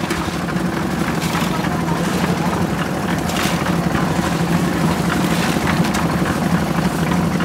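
Engine-driven drum concrete mixer running steadily as it churns concrete, with a few scrapes of shovels in sand and gravel.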